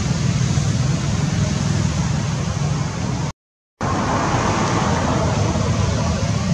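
Steady low rumble with hiss, broken by a half-second gap of total silence a little past three seconds in.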